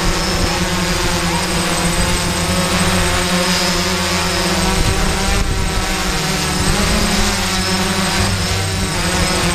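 Close-up steady hum and whine of a DJI F550 hexacopter's six electric motors and propellers while it hovers, picked up by the camera it carries.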